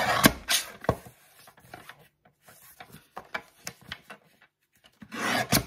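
Vaessen Creative slide paper trimmer cutting cardstock: the blade carriage drawn along the rail with a short scraping swish at the start and again about five seconds in, each ending in a sharp click. Light clicks and paper shuffling in between as the card is repositioned.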